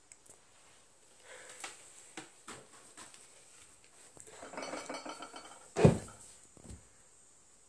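Handling noise from a phone camera being moved in close: scattered light clicks and rustles, a short pitched, buzzy sound about four and a half seconds in, then a loud low thump just before six seconds and a softer one after it.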